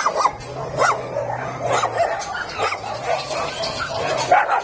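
Many dogs barking and yipping at once, their short calls overlapping in a continuous chorus.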